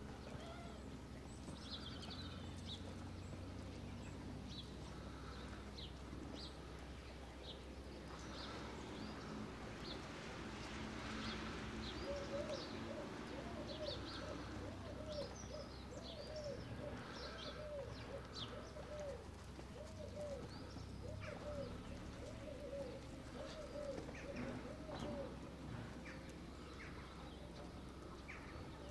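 Small wild birds chirping and singing, fairly faint. Through the middle stretch a run of short, low, arching calls repeats about twice a second.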